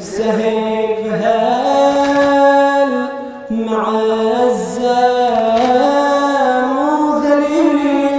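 A male radood chanting a Shia latmiya, a Muharram mourning elegy, into a microphone. The single voice draws out long held notes that step and slide in pitch, with a short break for breath about three seconds in.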